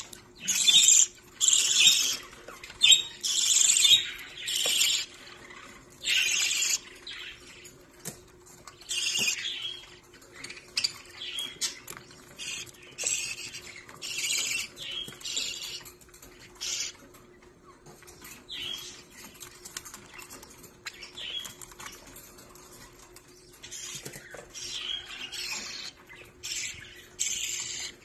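Budgerigars (parakeets) in a cage making short, scratchy high-pitched bursts of chatter, mixed with the rustle of wings, collard leaves and seed. The bursts come in clusters, busiest at the start and again around the middle. A faint steady hum runs underneath.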